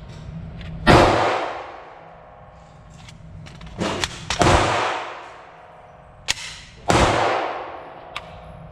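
9mm pistol shots fired one at a time: several sharp reports spread over a few seconds, each followed by a long echoing tail.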